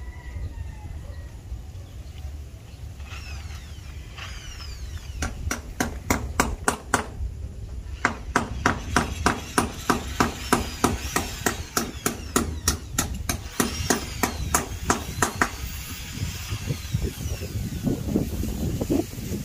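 Hand hammer striking at a window grill in a quick series of separate blows, about four a second, with a short pause partway through; the blows stop a few seconds before the end. A low wind rumble on the microphone runs underneath.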